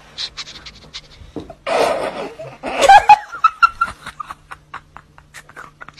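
A person snickering and laughing in short bursts about two and three seconds in, over a string of light clicks.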